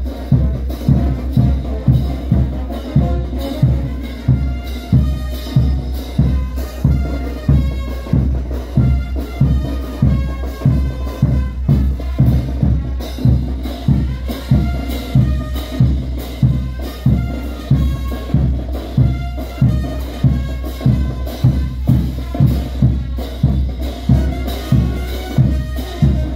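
Festival band music for a morenada dance: a steady, loud drum beat, about two strokes a second, under a melody on wind instruments.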